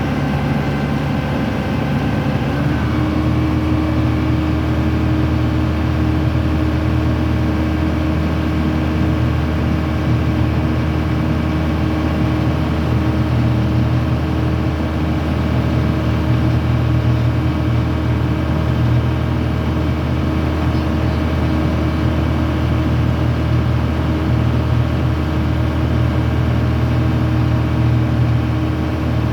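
A boat's engine running in a steady low drone. It changes note once, about two and a half seconds in, then holds steady.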